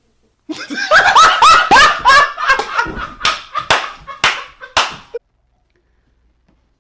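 Loud, hard laughing in a quick run of sharp, squealing bursts lasting about four and a half seconds, cut off suddenly.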